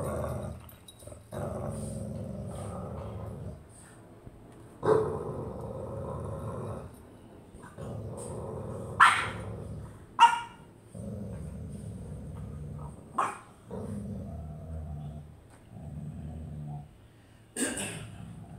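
A French bulldog and a Staffordshire bull terrier growling at each other in play over a ball: long growls of a second or two each, broken by about five short, sharp barks.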